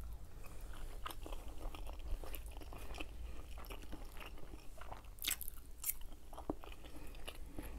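Close-up chewing of a mouthful of food, with small wet mouth clicks and smacks in an irregular patter and a couple of sharper clicks about five and six seconds in. A low steady hum runs underneath.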